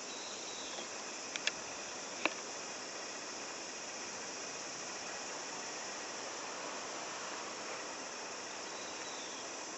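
Steady outdoor background with a constant high insect chirring. Three short sharp clicks come about one and a half to two seconds in.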